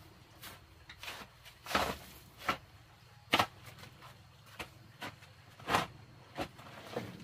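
A steel shovel scraping and digging into a dry mix of cement, sand and gravel on a dirt floor, turning it by hand. About ten short, sharp scrapes come at uneven intervals, the loudest a little before halfway and again past halfway.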